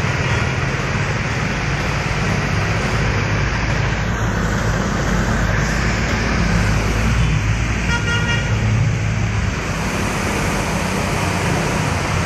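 Heavy rain and floodwater hiss steadily as motor vehicles drive through the flooded street, splashing through the water over a low rumble of engines. A brief horn toot sounds about eight seconds in.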